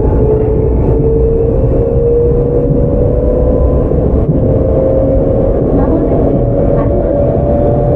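Tokyu 9000 series electric train heard from on board: the early Hitachi GTO-VVVF traction drive and motors whine steadily, rising slowly in pitch as the train picks up speed, over a constant rumble of wheels on rail.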